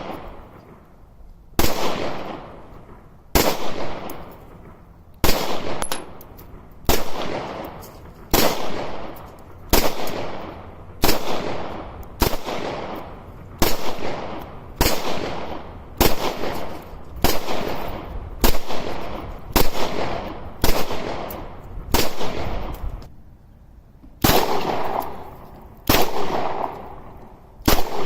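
A firearm fired in single shots at a steady pace, over twenty in all: at first about one every second and a half, then quickening to about one a second. Each shot is followed by a long echo that dies away before the next.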